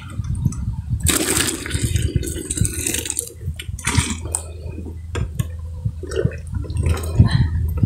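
Steaming hot water poured from a plastic jug into a large metal pot of dye, splashing as it falls. There is one long pour and then a shorter one about four seconds in.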